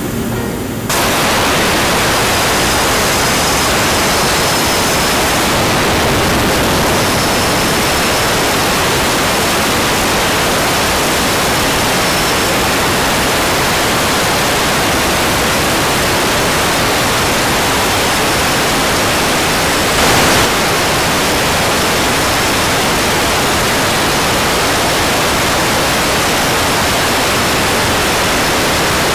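A 400 A CNC plasma cutting torch fires its arc about a second in and cuts through 50 mm steel plate with a loud, steady hiss. A faint high whistle sits above it at times, and there is a brief louder burst about 20 seconds in.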